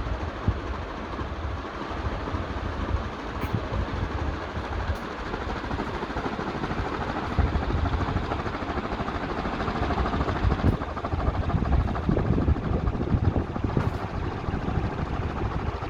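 CMC ceiling fan fitted with a transplanted Bajaj Maxima stator, running steadily. The moving air carries an uneven low rumble.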